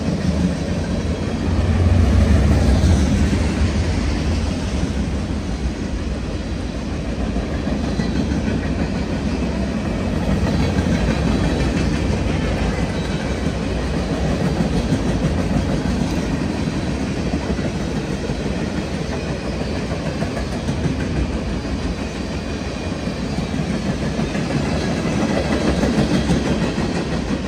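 Freight cars of a CN mixed freight rolling past at speed, a steady rumble of steel wheels on the rails.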